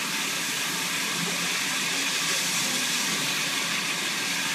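Steady hiss of steam escaping from Western Maryland steam locomotive No. 734.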